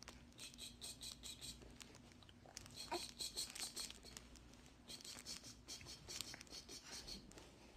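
Faint crinkling and rustling of a crinkly wrapper under a baby's hand, in three short spells of quick crackles.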